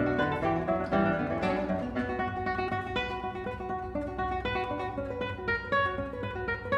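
Two nylon-string classical guitars playing a duet, plucked notes rather than strumming. The first two seconds are busy and full, then the playing thins to lighter, separate notes.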